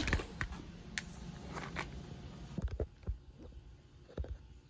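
Faint handling noise: a few low thumps and scrapes as the phone camera is moved and repositioned, with a sharp click about a second in.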